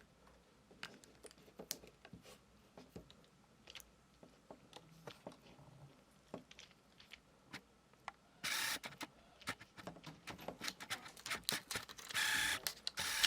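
Quiet handling noise: scattered light clicks and taps, with two brief louder scuffing sounds, one about eight and a half seconds in and one near the end.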